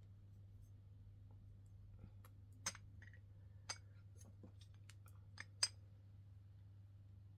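A ceramic teapot being handled and turned over in the hands: a handful of light, sharp clicks as fingers and rings touch the china, over a low steady hum.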